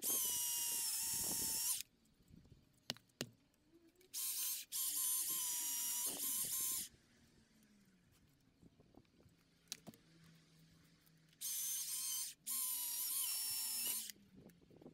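Stihl MSA 220 battery chainsaw run in three short bursts of a high electric whine, each one to three seconds long with quiet gaps between; the second and third bursts break off for a moment and pick up again.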